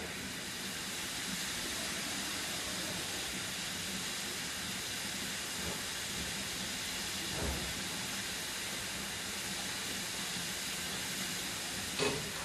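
BR Standard Class 4 tank steam locomotive standing in steam, with a steady hiss of escaping steam. A dull knock comes about halfway through, and a sharp metallic clank near the end.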